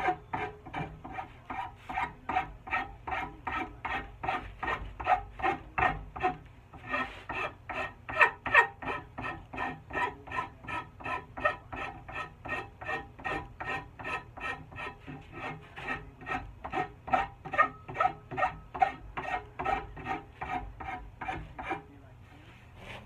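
A file rasping across a wooden axe handle in quick, even back-and-forth strokes, about two to three a second, rounding the handle's end into a palm swell. The strokes stop about a second before the end.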